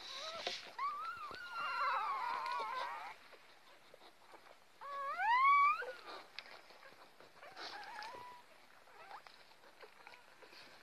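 Newborn Lagotto Romagnolo puppies squealing and whimpering: several overlapping high cries in the first few seconds, the loudest a rising squeal about five seconds in, then fainter whimpers.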